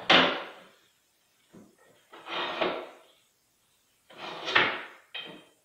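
Steel pipe clamp on a 3/4-inch pipe being slid and adjusted by hand, in about five short scraping, clacking strokes. The loudest stroke comes right at the start.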